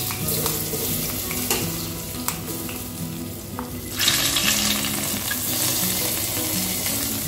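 Hot ghee with fried cashews poured from a small pan into a pot of payasam, sizzling as it hits the liquid. A few light clicks come early on, and the sizzle grows louder about four seconds in as the rest of the ghee is poured.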